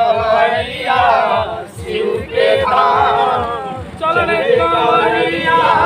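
Devotional song with male singing over a steady beat of about four pulses a second.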